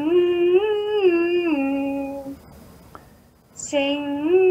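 A woman sings a sustained 'ng' hum in a vocal exercise for developing twang, sung with the jaw released. She goes up and back down in five stepped notes, then starts the same pattern again about three and a half seconds in.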